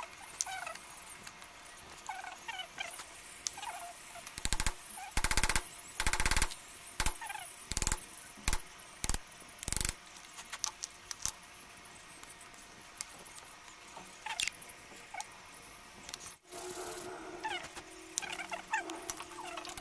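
Hand tools cutting the throat of a small wooden hand plane body: a run of loud knocks and short rasping strokes from about 4 to 10 seconds in. Near the end the wooden block is rubbed on sandpaper with a steady scraping sound.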